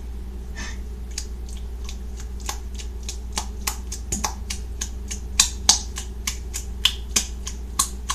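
Sticky borax-and-glue slime being kneaded and pulled by hand, giving irregular wet clicks and pops that come more often from about two and a half seconds in, over a steady low hum.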